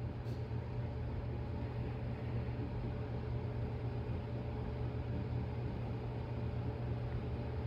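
Steady low mechanical hum throughout, with a faint brief click just after the start.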